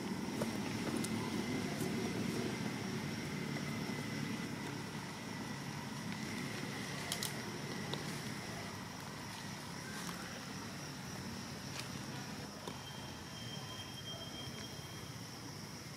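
Outdoor ambience: a low, motor-like rumble that slowly fades, under a steady high insect drone, with a few faint clicks.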